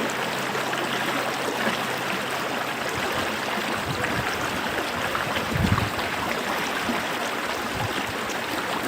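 A small creek running, a steady rush of water with small splashes and a brief louder gurgle about five and a half seconds in.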